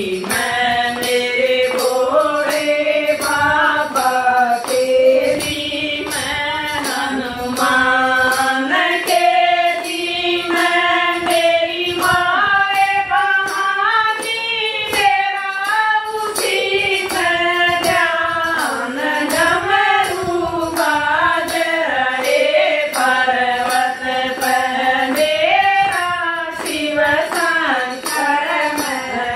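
A group of women singing a Hindi devotional bhajan to Shiva in unison, with hand-clapping keeping a steady beat.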